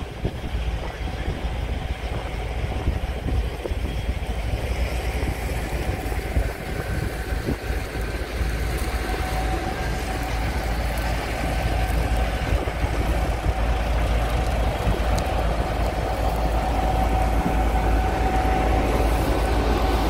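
Gleaner S77 combine running under load as it picks up a swath of oats: a steady engine and threshing drone with a thin whine that strengthens in the second half, growing louder as the machine comes closer.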